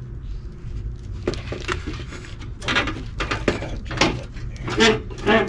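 A series of sharp metal clanks and knocks, about ten in all starting about a second in, some with a brief ring, as the steel crash bar is worked loose from the removed chrome front bumper of a Toyota Tundra.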